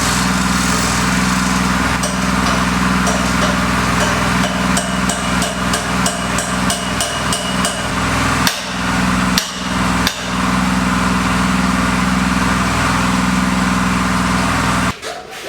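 A construction power tool's motor running loud and steady, cutting out briefly a few times around the middle, with a run of sharp hammer-like knocks over its first half.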